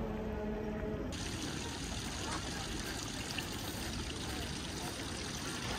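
Steady splashing of running water from a public fountain, with faint voices. About a second in, a low steady hum with evenly spaced tones cuts off abruptly.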